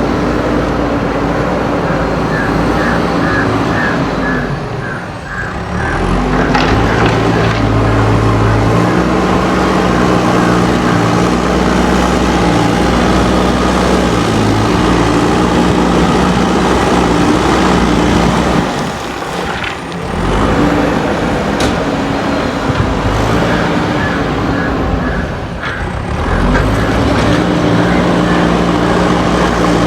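JCB backhoe loader's diesel engine working under load while levelling soil, its pitch stepping up and down as the load changes. The engine note dips briefly three times, then picks up again.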